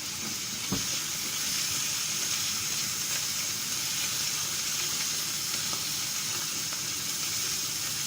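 Sliced mushrooms and chopped onion sizzling steadily as they sauté in a pan in the beef's own drippings, with no added oil. There is a single knock just under a second in.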